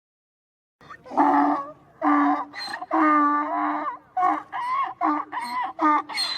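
Donkey braying: after a brief silence, three long pitched calls come about a second in, then a quicker run of shorter calls near the end.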